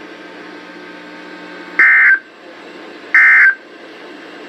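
Emergency Alert System end-of-message data bursts on a NOAA weather radio, marking the end of a severe thunderstorm warning broadcast. Two loud, short bursts of warbling digital tones come about 1.3 seconds apart, with a third starting near the end, over a faint radio hiss and hum.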